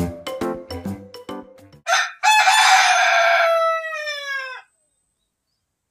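Music with a beat stops, then a rooster crows once: a short opening note, then one long held note that falls in pitch as it ends.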